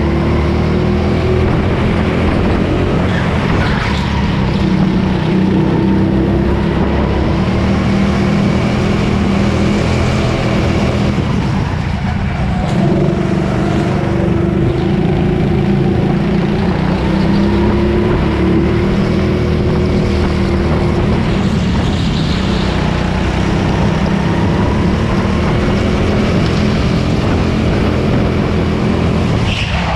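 Go-kart's small single-cylinder petrol engine running hard, heard from on board, its note rising and falling with the throttle through the corners and dipping clearly about twelve seconds in.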